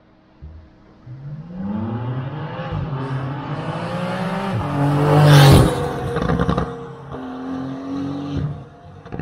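Porsche 992's flat-six through a straight-flow IPE full exhaust revving up hard: the note climbs to a loud peak about five and a half seconds in, then drops away with crackles, and rises again briefly near the end.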